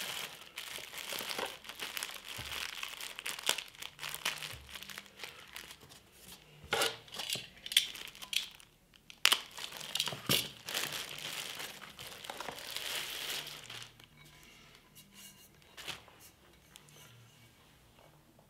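Plastic bag wrapping crinkling and rustling in irregular bursts as a turntable platter is unwrapped, with some sharper tearing sounds. It fades to a few faint ticks over the last few seconds.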